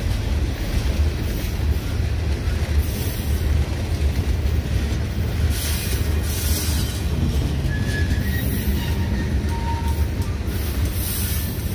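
Freight train cars, tank cars and then open-top gondolas, rolling past close by with a steady low rumble of wheels on rail. A faint, brief high wheel squeal comes about two-thirds of the way through.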